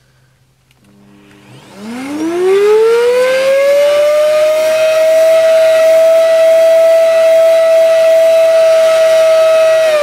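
Hoover Dustmanager 2200 W bagless upright vacuum cleaner switched on: its motor whine rises in pitch over about two seconds, then runs steady and loud. It doesn't sound too healthy, and there is next to no suction, which the owner puts down to clogged filters.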